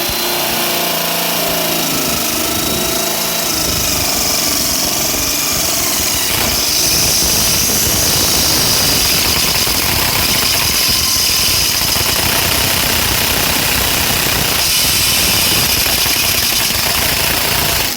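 Handheld power drill running hard and continuously, working at a security screw that holds a washer's water inlet valve. Its pitch shifts in the first few seconds, then it settles into a steady, loud grinding whir, and it stops suddenly at the end.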